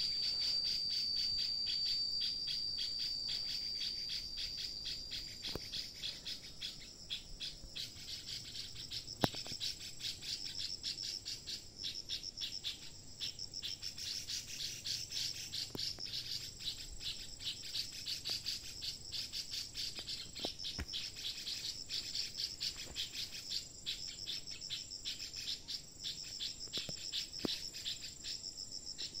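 Insects calling in the forest. A steady high-pitched whine over the first few seconds gives way to a fast, high pulsing trill, with a faint click now and then.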